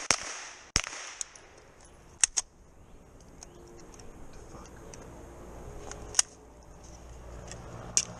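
Pistol-caliber carbine firing on a competition stage. There is a quick pair of shots right at the start, one shot just under a second in, another quick pair a little over two seconds in, then single shots about six and eight seconds in.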